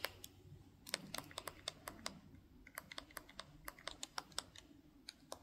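Remote control buttons clicked repeatedly, about four or five quick presses a second in short runs with a brief pause midway, as a TV menu is stepped through.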